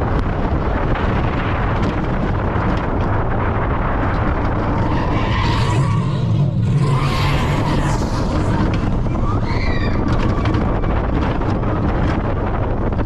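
On-ride sound of a Vekoma Junior Boomerang roller coaster: steady wind buffeting the microphone and the train rumbling along the track. The rush swells from about five to eight seconds in, then a short high squeal comes about ten seconds in.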